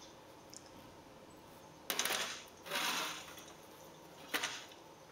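Metal screw bands being twisted onto small glass canning jars: two short rasping scrapes of the threads, then a single sharp clink near the end.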